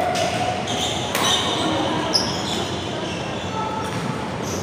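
Badminton rally: several sharp racket strikes on the shuttlecock, with short high shoe squeaks on the court floor, echoing in a large hall.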